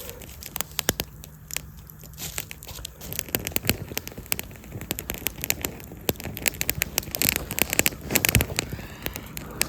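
Wood campfire crackling, with sharp irregular snaps and pops that come thicker in the last few seconds.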